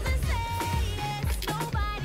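Background music with a steady bass beat and a melody line over it.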